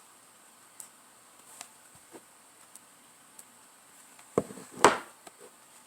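Faint scattered clicks, then two louder knocks about four and a half seconds in, as a transmission solenoid and its test wires are handled and touched together on a desk.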